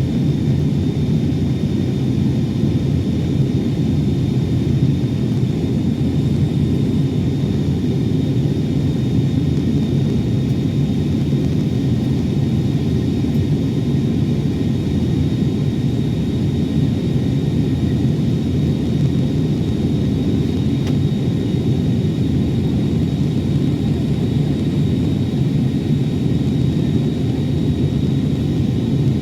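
Airbus A321neo in flight, heard as a steady low rumble of its jet engines and airflow, with a thin steady high whine over it.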